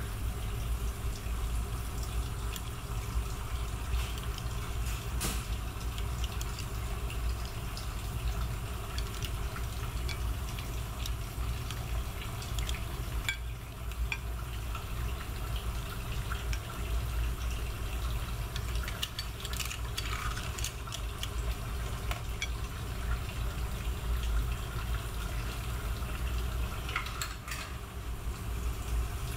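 Steady low rumble of kitchen background noise, with scattered light clinks of metal tongs against a ceramic plate as seafood is laid on the dish.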